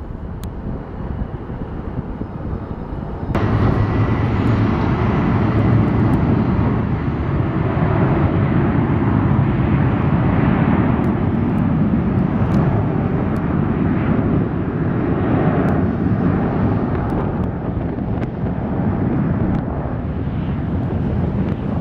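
Airliner jet engine noise as a plane lifts off, then after a sudden step up about three seconds in, the louder, steady noise of a Boeing 737-900ER's CFM56-7B turbofans on the runway, with wind on the microphone.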